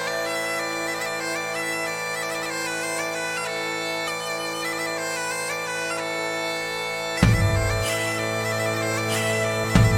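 Background music: a bagpipe melody over steady drones, with a deep drum hit about seven seconds in and another near the end.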